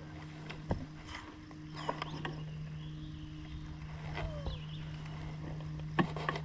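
Steady low hum of a boat motor on a small fishing boat, with a few scattered clicks and knocks.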